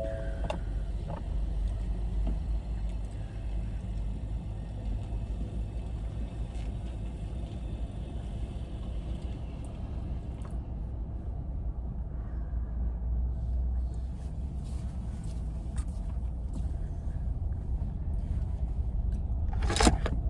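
Car engine and road rumble heard from inside the cabin as the car is driven a short way to repark: a steady low rumble, with a few knocks shortly before the end.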